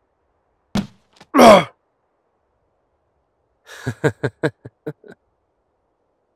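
A blunt thunk of a blow to a man's head from behind, followed at once by his short pained cry falling in pitch as he is knocked out cold. A few seconds later comes a quick run of about seven short sounds.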